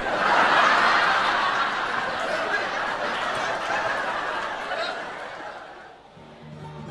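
A classroom of students laughing together, a dense wash of laughter that starts loud and dies away over about six seconds. Guitar music comes in near the end.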